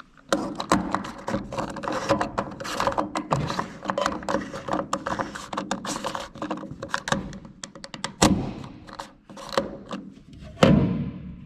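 Irregular knocking and clattering, with a loud thump about eight seconds in and another near the end.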